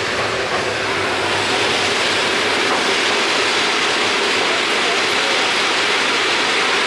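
Steady rushing and rumbling of trains running on the rails, heard from inside a sleeper-carriage compartment as a container freight train passes close alongside on the next track.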